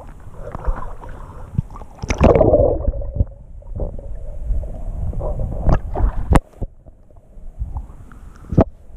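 Water sloshing and gurgling around a camera held at and under the surface of a shallow river, with a low rumble throughout and a louder splash about two seconds in. A few sharp clicks follow in the second half.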